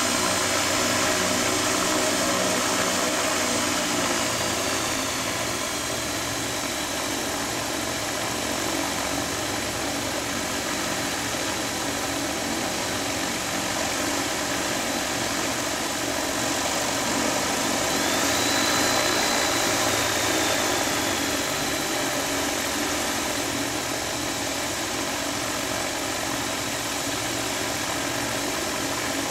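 The airship's Rotax 912 four-cylinder propeller engines idling steadily on a ground run. A high whine sinks a little about four seconds in, then rises and falls again with a brief swell in loudness around eighteen seconds in.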